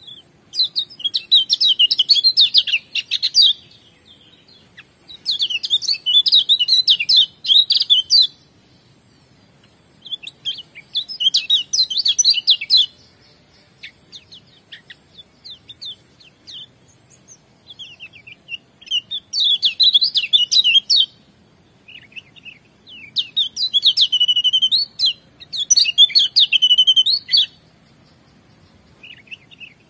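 A caged white-eye (pleci, kecial kuning) singing its rapid twittering song in repeated bouts a few seconds long, about seven of them, with short pauses between.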